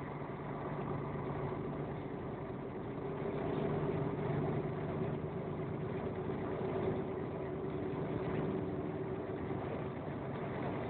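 Running engine and tyre noise heard from inside a moving vehicle on a wet road: a steady engine hum over road hiss, growing slightly louder about three seconds in.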